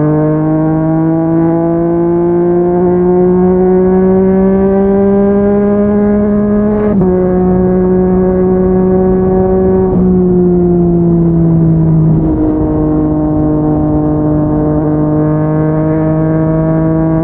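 Yamaha MT-09 inline three-cylinder engine through a Yoshimura R55 slip-on exhaust, pulling under throttle with its note rising slowly. The note breaks briefly about seven seconds in and again near twelve seconds, then settles into a steady, slightly lower drone.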